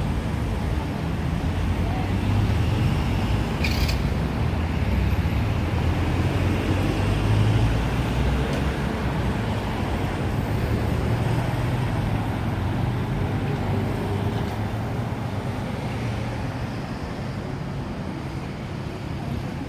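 Steady low rumble of road and traffic noise, with a single sharp click about four seconds in.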